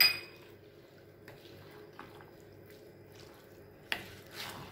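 A sharp clink with a brief ring at the start, then a faint steady low hum. About four seconds in, a knock and a short wet scrape as a wooden spatula stirs thick mango pickle in a nonstick pan.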